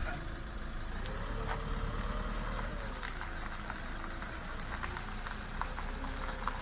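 Motorhome engine running steadily at low revs as the vehicle creeps forward.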